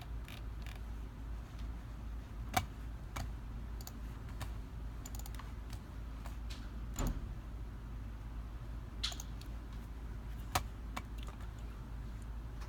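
Scattered clicks of a computer keyboard and mouse, a dozen or so at uneven intervals, over a steady low hum.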